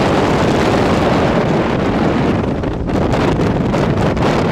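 Steady wind buffeting the microphone on a moving motorbike, mixed with the motorbike's running and road noise.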